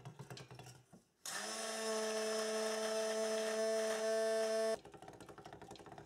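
Stick blender running in a steel pot of lye water and melted oils, blending cold process soap batter toward emulsion. Its motor whine starts about a second in, quickly rises to speed, holds steady for about three and a half seconds, then cuts off abruptly.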